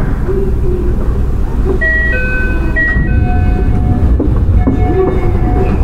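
Running sound inside a Toei 6300 series subway car: a steady low rumble of the train on the rails, joined about two seconds in by the whine of its Hitachi GTO-VVVF inverter, steady tones that jump in pitch in steps.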